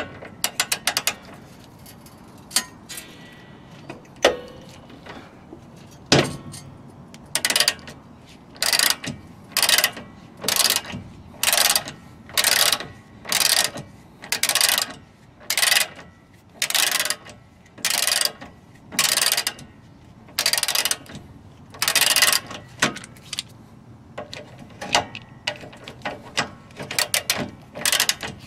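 Socket ratchet undoing a 17 mm shock absorber mounting nut. Its pawl clicks in a burst on each back-swing, about one burst a second, after a few sharp knocks at the start.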